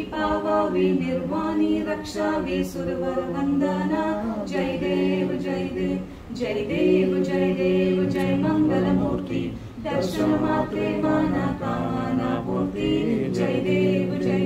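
Unaccompanied devotional singing by a few voices, an aarti hymn to Ganesha sung during the lamp-waving, in held phrases with short breaks.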